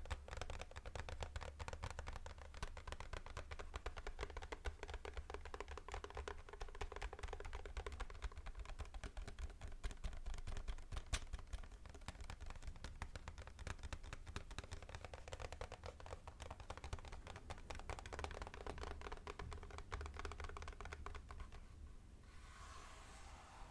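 Fast typing on a computer keyboard: a dense, rapid run of key clicks. About 22 seconds in the clicking stops and a soft rustle follows.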